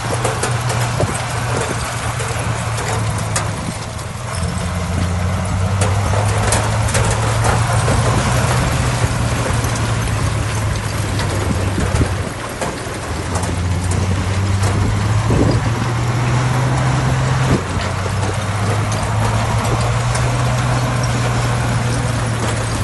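Diesel engine of heavy earthmoving machinery running under varying load, its pitch stepping down and up a few times, with occasional clicks and knocks over it.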